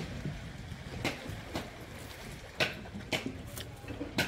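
Shallow sea water splashing and slapping in about six short, irregular slaps over a low steady rumble.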